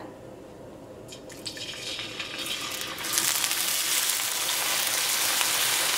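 Diced raw potatoes dropped into hot oil in a wok, sizzling. The sizzle starts about a second in and grows to a steady loud sizzle by about three seconds as more potato goes into the oil.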